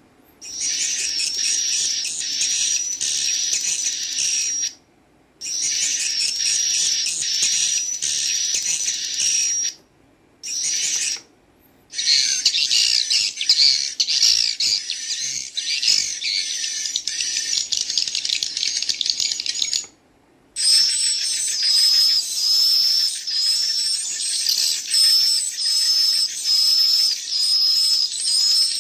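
Recorded swiftlet calls played back through a device's speaker: dense, high-pitched chirping of swiftlet chicks ('ci ci ci cu cu cut') mixed with calls of adult swiftlets. The recording stops briefly four times, and from about twenty seconds in the chirps come in a steadier repeating pattern.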